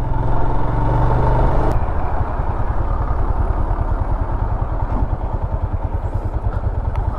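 Royal Enfield Himalayan's single-cylinder engine idling steadily, then from about two seconds in pulling away, the even idle giving way to a rougher, pulsing engine note.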